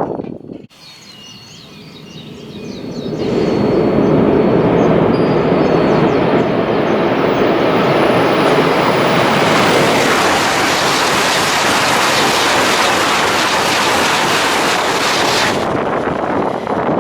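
Tohoku Shinkansen train passing at high speed: a rushing noise swells over a couple of seconds, holds loud and steady for about eleven seconds, then cuts off sharply near the end.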